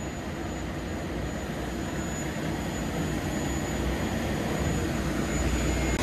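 A machine's engine running steadily with a low rumble, slowly getting louder, with a thin high whine throughout.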